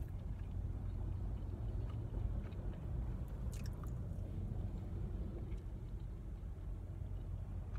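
Close-up chewing of a rib sandwich with wet mouth sounds and a few sharp clicky smacks about halfway through, over a steady low rumble inside the car.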